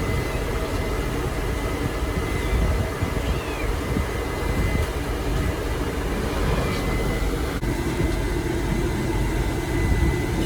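Steady low rumble of an idling vehicle engine with a thin steady whine over it; a cat meows faintly a couple of times.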